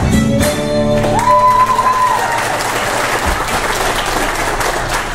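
A live fiddle-and-guitar tune ends in the first second, then the audience applauds. One high note is held for about a second as the clapping starts.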